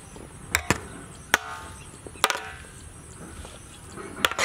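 Steel spoon knocking and scraping against a large metal tray while tossing diced vegetables: about six sharp, irregular clinks, some with a short metallic ring.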